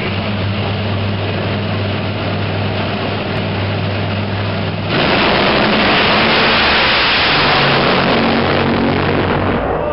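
Top Fuel dragster engines, supercharged nitromethane-burning V8s, running steadily at the start line, then suddenly going to full throttle about five seconds in for a very loud launch that holds for several seconds and eases off near the end as the cars go down the track.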